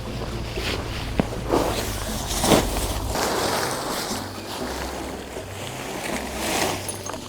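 Rustling and swishing of camping gear being handled, several swishes with the loudest about two and a half seconds in, over a low steady hum.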